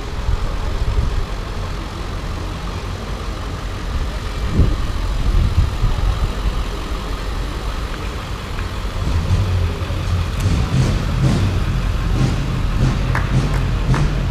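Slow-moving parade vehicles passing close by: the engines of a box truck and then a Chevrolet shuttle bus run at low speed, with a steady low rumble that grows louder as the bus comes near in the second half. A few sharp taps come near the end.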